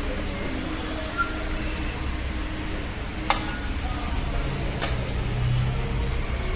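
Cutlery clinking twice against a plate or bowl during a meal, over a steady low background rumble with faint murmur.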